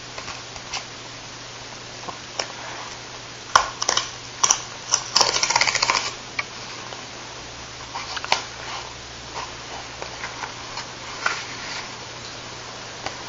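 Stiff cardboard photo mailer being handled and torn open: scattered sharp crackles and rustles, with a longer tearing rasp about five seconds in as the perforated tear strip is pulled off.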